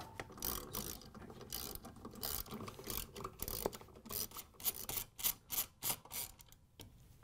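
Ratchet wrench with a half-inch socket and extension clicking in short runs as it is swung back and forth, backing out the transmission mounting bolts of a Whirlpool top-load washer. The clicks come faster in the second half and stop shortly before the end.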